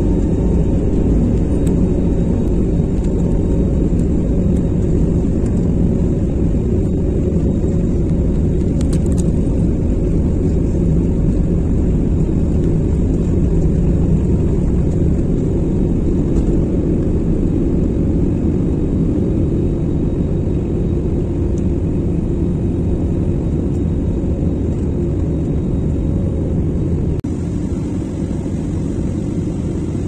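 Jet airliner cabin noise heard from inside the cabin: engines and rolling rumble as a steady, loud, deep rumble while the aircraft moves on the ground. The sound shifts slightly at an edit near the end.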